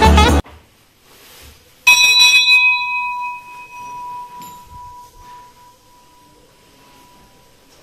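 A temple bell rung about two seconds in: a short clatter of strikes, then one clear metallic tone that rings on and slowly dies away over several seconds.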